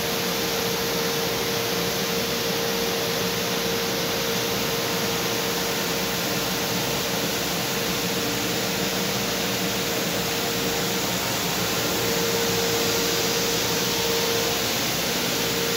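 Steady rushing noise of a running fan, with a constant hum in it and no pauses or changes.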